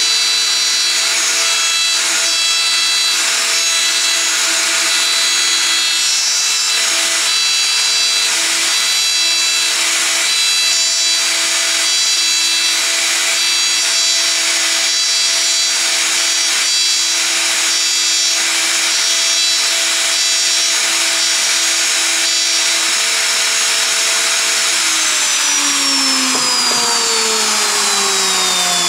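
Festool router, mounted upside down, running at speed while its bit cuts a plywood disc: a steady whine over rough cutting noise. About 25 seconds in it is switched off and the whine falls away as the motor spins down.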